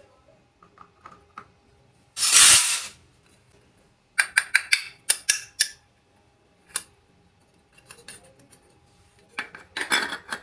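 Small pieces of a miniature toy kitchen set being handled: a rasping scrape about two seconds in, then a quick run of sharp clicks and clinks, one more click, and another rasp near the end.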